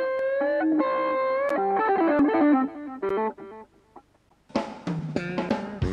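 Distorted electric guitar playing a lead lick of held notes with small bends, which thins out and dies away about three seconds in. After a moment of near silence, a new passage of guitar with bass and drums starts near the end.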